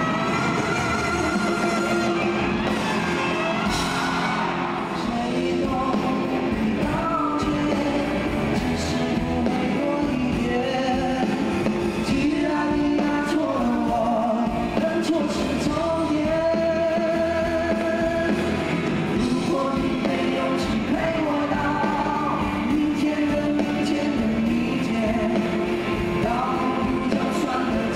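Live rock song: male vocals sung over acoustic and electric guitars and a backing band, continuous throughout.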